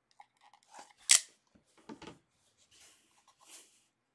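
A 2018 National Treasures football card box being opened by hand: one sharp click of cardboard about a second in, then lighter clicks and the rub of cardboard sliding as the box is worked out of its sleeve.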